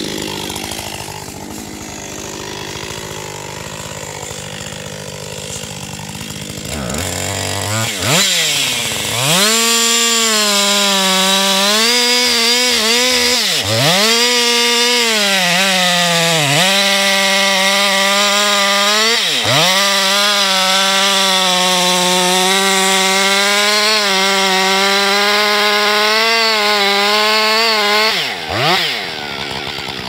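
Gasoline chainsaw revved up to full throttle about eight seconds in and held at high, steady revs while cutting into the base of a large tree trunk, with a few brief dips in throttle. Near the end it drops off, gives one quick rev, and falls back.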